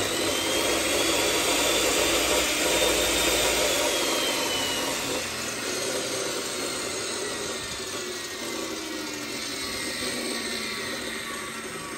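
Hitachi CC16 abrasive cut-off saw running free with its 405 mm cutting wheel, no cut being made: a steady high whine that, after about four seconds, slowly falls in pitch and fades as the motor and wheel coast down.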